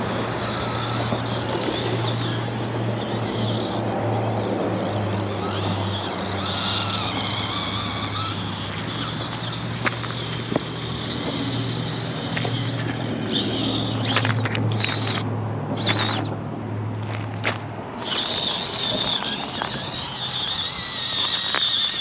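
Mini RC rock crawler's small electric motor and gears whining as it climbs over boulders, with scattered sharp clicks of tyres and chassis on rock. A steady low drone runs underneath and stops about four seconds before the end.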